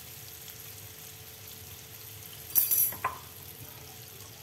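Hot cooking oil in a wok sizzling and bubbling steadily, ready for deep-frying battered broccoli. About two and a half seconds in comes a brief, much louder burst of noise, with a smaller one just after.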